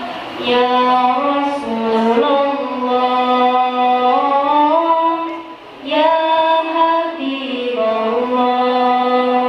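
A girl's solo voice singing an unaccompanied devotional chant through a microphone, holding long notes with ornamented turns that slide between pitches, with a short break for breath about five and a half seconds in. The marawis drums are silent.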